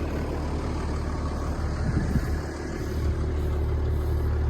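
New Holland T7040 tractor engine running steadily with a low hum while baling. Its note dips slightly about two and a half seconds in, then picks back up.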